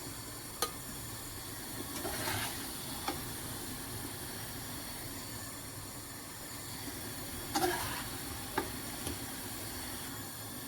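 Chicken breast pieces sizzling in hot oil in a frying pan, a steady hiss, with a few sharp clicks and two louder clatters of a utensil against the pan as the chicken is taken out.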